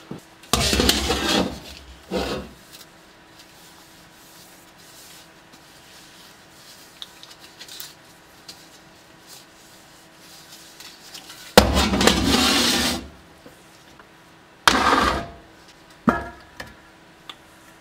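Intermittent rubbing and scraping as gloved hands handle a bare steel helmet shell and a metal tin on a metal workbench, in a few separate bursts, then a few short clicks near the end.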